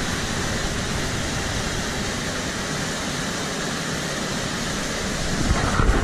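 Mountain stream rushing over rocks and small cascades: a steady, even rush of water. Near the end a low rumble on the microphone builds up.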